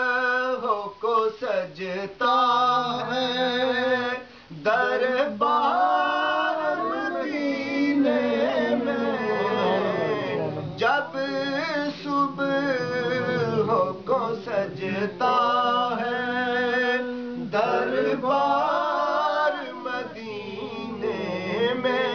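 A man singing an Urdu naat unaccompanied, in long wavering phrases with ornamented slides and short breaks for breath.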